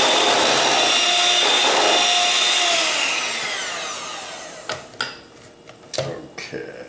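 Electric hand mixer running at speed, whipping egg white and powdered sugar into royal icing in a stainless steel bowl. About three seconds in it is switched off and its whine falls in pitch as the motor winds down, followed by a few sharp clicks as the beaters are taken out.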